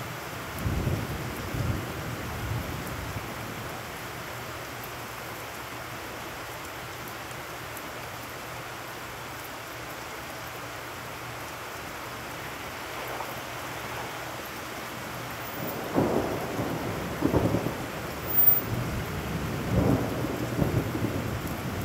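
Steady rain falling on wet ground and puddles, with low rumbles of thunder about a second in and again, in several rolling surges, over the last several seconds.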